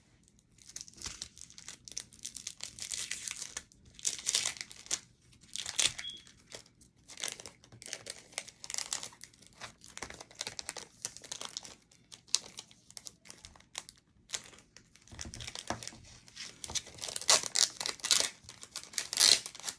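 Packaging being crinkled and torn open by hand, in irregular bursts of rustling and ripping with short pauses between them, heaviest near the end.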